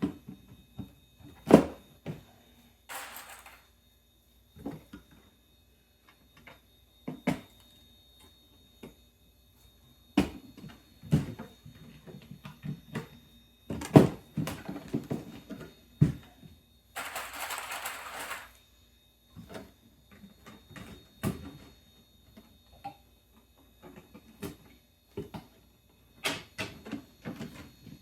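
Plastic course sections and cross braces being handled and snapped together by hand: scattered knocks and clicks, with a short rustling scrape about three seconds in and a longer one a little past halfway.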